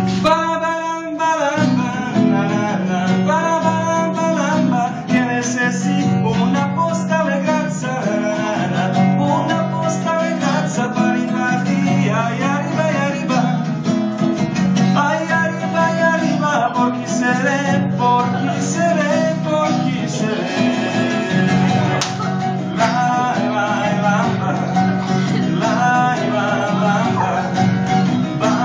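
Two acoustic guitars, one of them a nylon-string classical guitar, strummed together in a steady rhythm, with a voice singing a melody over them.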